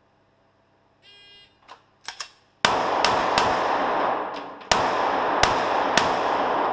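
A shot-timer beep about a second in, a few light clicks, then a CZ P-07 9x19 pistol firing six shots: three quickly, a pause, then three more spaced a little wider. Each shot rings on in the echo of the indoor range.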